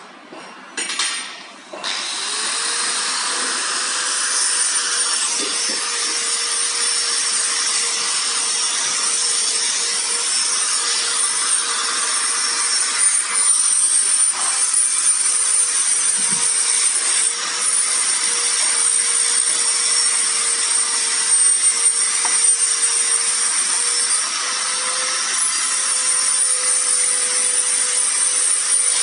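A machine running steadily: a continuous rasping noise with a steady hum under it, starting about two seconds in after a short clatter.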